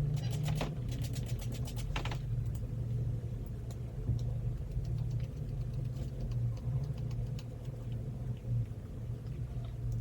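Steady low hum of a small motor or appliance, with a quick run of clicks in the first two seconds.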